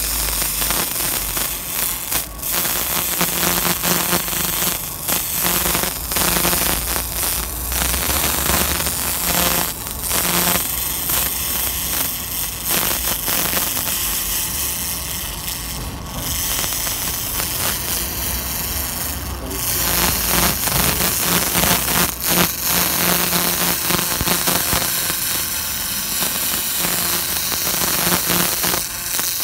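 Pulsed restoration laser striking black crust on carved stone: a dense, rapid crackle as the crust is blasted off, broken by a few short pauses, with a low steady hum underneath.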